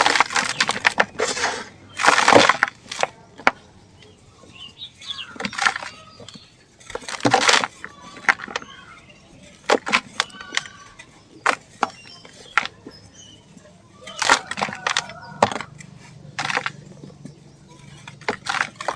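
Dry sand-and-cement chunks crumbling and breaking apart: an irregular run of gritty crunches and sharp cracks, loudest at the start, about two seconds in and again about seven seconds in.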